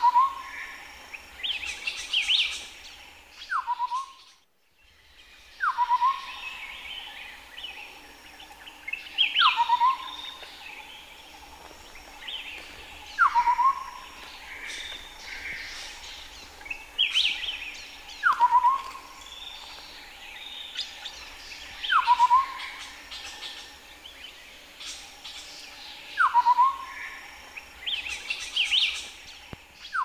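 Chestnut-headed partridge calling: a whistle sliding down, then a few quick short notes, repeated about every four seconds. Other birds chirp higher between the calls.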